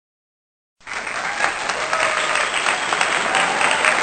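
Crowd applause with some cheering, cutting in abruptly from dead silence about a second in and continuing steadily.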